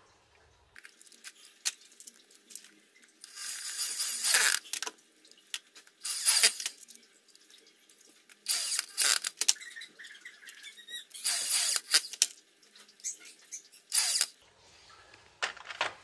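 A power drill running in several short bursts, a few seconds apart, driving in the bolts that fasten a replacement gearbox to a washing machine.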